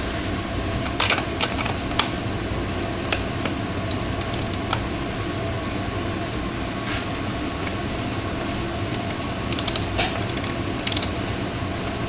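An air-conditioning unit runs steadily in the background. Scattered metallic clicks and clinks come from a wrench being worked on a rear sprocket bolt where it has got stuck, busiest near the end.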